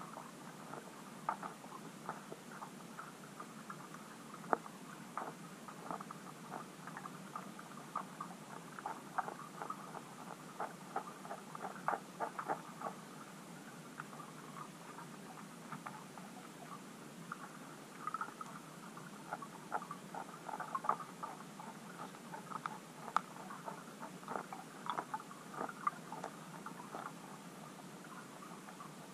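Underwater sound in a shoal of bream and tench: dense, irregular clicking and ticking, several clicks a second and bunched in places, over a steady low hum.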